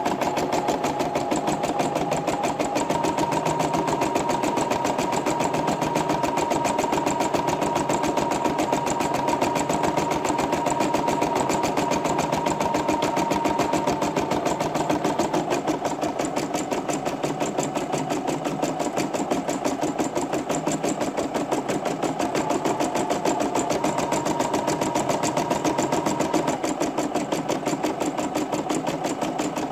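Garudan sewing and embroidery machine stitching an embroidery design: the needle runs in a fast, even chatter of stitches over the steady whine of the motor.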